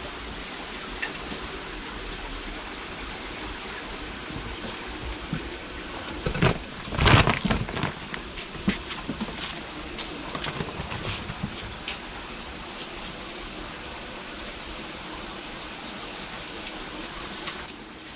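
Steady background hiss, with a burst of knocks and rustling about seven seconds in, then a few light scattered clicks.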